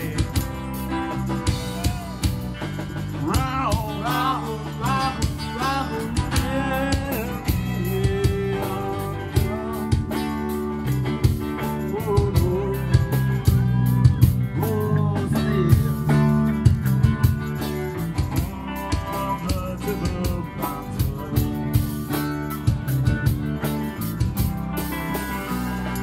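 Live amplified band music in a blues style: acoustic guitar played over a steady drum beat.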